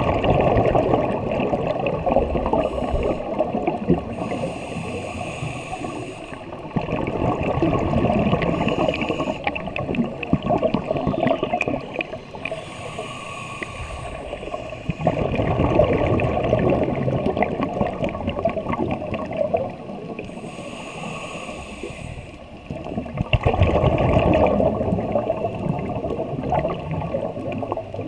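Scuba diver breathing through a regulator underwater: exhaled bubbles gurgle and rumble in bursts of three to four seconds, about every eight seconds. A short hiss comes in the quieter gaps between them.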